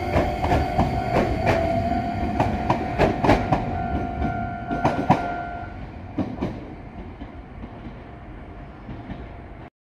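Iyo Railway electric train running past, with a steady whine from its VVVF inverter traction control and wheels clacking over rail joints. The whine stops a little after halfway, and the train sound then fades as it moves away.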